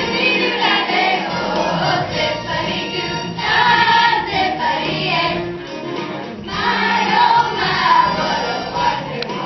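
A large children's chorus singing together.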